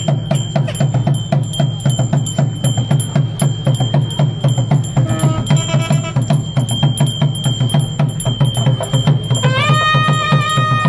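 Temple percussion: a drum beaten in a fast, steady rhythm with metal bells ringing over it. About nine and a half seconds in, a wind instrument slides up in pitch and then holds one long note.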